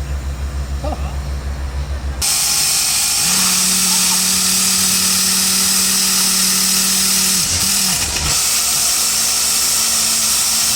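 Borewell drilling rig running: a low engine throb at about five beats a second, then from about two seconds in a loud, steady hissing and grinding of the drilling, with a hum that drops out briefly near eight seconds in and comes back higher.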